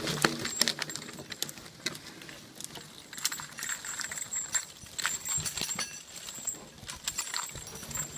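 Draught horse dragging a log on a chain through woodland: irregular clinks and rattles of the chain and harness, with knocks and crackles of hooves, feet and the log over twigs on the forest floor.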